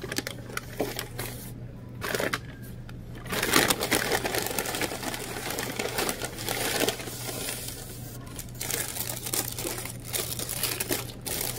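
Brown paper takeout bag crinkling and rustling as it is set down and opened by hand, in irregular crackles that are loudest a few seconds in, over a steady low hum.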